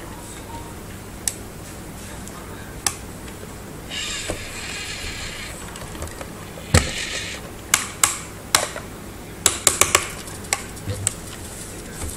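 Plastic toy remote-control excavator being handled: scattered sharp plastic clicks and knocks, with a buzzing gear rattle lasting about a second and a half, about four seconds in.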